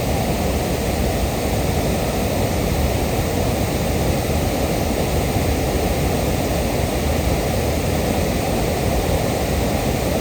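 Waterfall: a steady rush of water cascading over the rocks of Nyangombe Falls, loud and unbroken.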